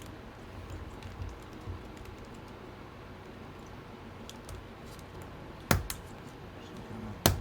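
Light plastic clicks and taps from laptop parts being handled and fitted into the palmrest, with two sharp clicks near the end.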